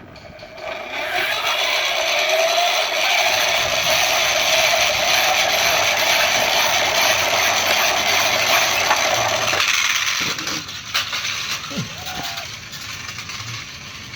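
Hand-cranked launcher of a toy Evel Knievel Stunt Cycle being wound up: a loud gear whir that rises slowly in pitch. It cuts off about ten seconds in and is followed by a few light clatters.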